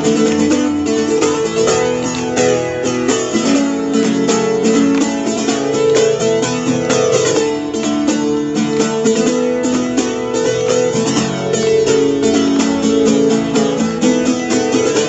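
Guitar strumming chords in a steady rhythm: the instrumental intro of a song played live, before the vocals come in.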